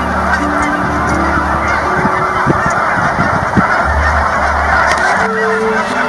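A large flock of Canada geese honking, a steady dense chorus of many overlapping calls.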